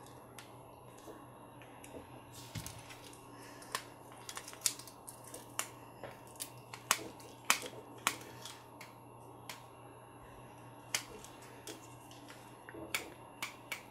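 Scattered light clicks and taps of small plastic parts and a hex key as an RC crawler's rear axle and steering linkage are handled and screwed together, a dozen or so sharp ticks at irregular intervals.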